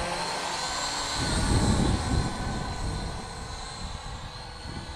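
Syma X8W quadcopter's motors and propellers whining in flight, a steady high buzz that wavers slightly in pitch as it manoeuvres and gets quieter toward the end as it flies farther off. A low rumble swells about a second in and is the loudest part.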